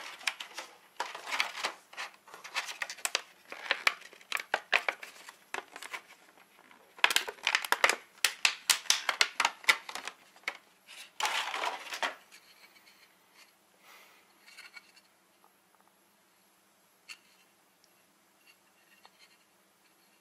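Clear plastic packaging crinkling and rustling in irregular bursts as a spare goggle lens is unwrapped by hand, dying down after about twelve seconds to a few faint handling clicks.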